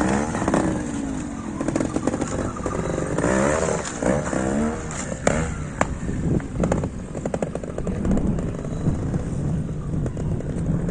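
Trials motorcycle engine revving in short throttle blips, pitch rising and falling repeatedly as the bike is ridden over rock obstacles, with a few sharp knocks around the middle.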